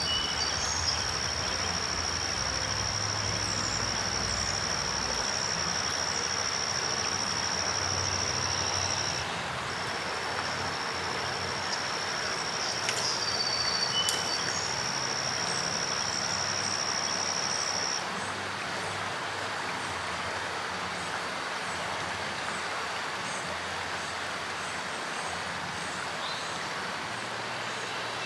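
River water rushing over rocks in a steady hiss, with an insect's continuous high-pitched buzz that breaks off briefly about nine seconds in and stops about eighteen seconds in.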